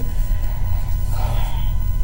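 Low, steady rumble under faint background music.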